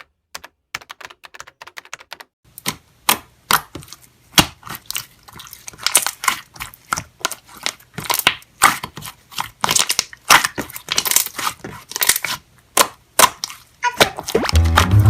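Slime being pressed and worked: a quick run of crisp clicks and crackles, sparse and faint at first, then denser and louder about two and a half seconds in.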